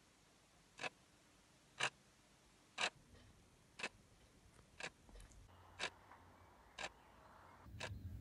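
A clock ticking steadily, one tick a second, over faint room noise.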